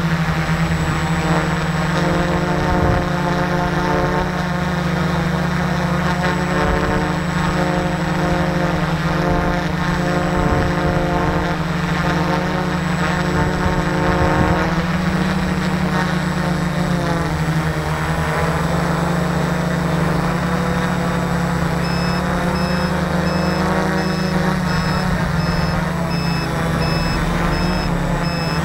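Multicopter's electric motors and propellers droning, heard close up from the on-board camera, the pitch drifting up and down as the throttle changes. Near the end a run of evenly spaced high beeps starts.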